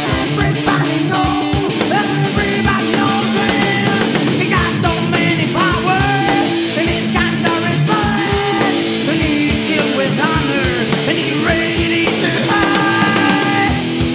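Loud rock'n'roll band music with electric guitar over a steady drumbeat.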